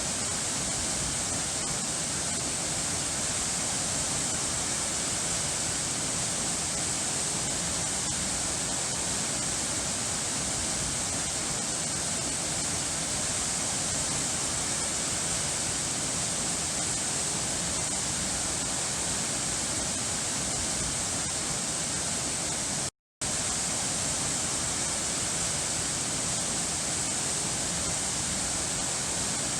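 Steady rushing water, like a waterfall or fast stream, unbroken and even. It cuts out completely for an instant about 23 seconds in, then carries on as before.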